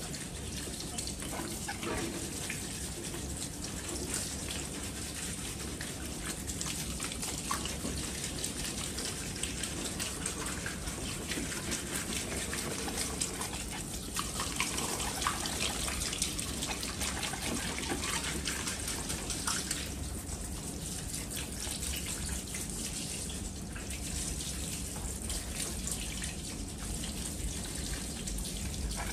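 Handheld shower sprayer of a salon shampoo basin running steadily, its water spraying onto the hair and splashing into the sink as the shampoo lather is rinsed out.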